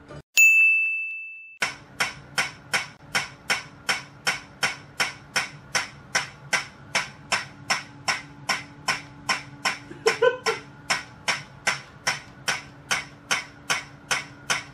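A single high, bell-like ding that dies away over about a second, followed by a steady, rapid ticking of about three clicks a second over a low hum.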